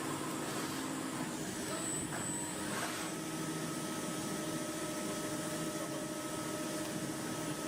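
CNC turn-mill machining center running: a steady mechanical hum with a thin, steady whine coming in about three seconds in and a brief high whistle around two seconds in.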